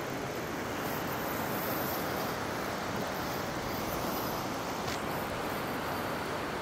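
Steady rush of river water running over rapids.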